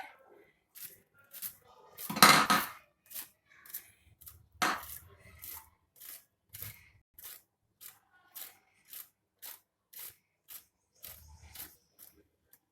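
A steady run of short, sharp clicks, a little under two a second, with a louder clatter about two seconds in and a single strong knock a couple of seconds later.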